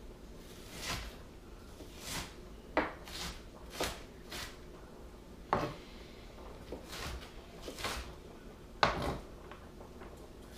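Kitchen knife slicing through a raw onion and striking a cutting board, one short sharp cut about every second at uneven spacing.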